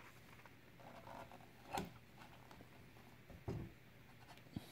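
A few faint, short knocks and clicks of a utility knife blade being pressed through a strip of rubber bandsaw-tire material onto a wooden board, the sharpest click about two seconds in and a duller knock about three and a half seconds in.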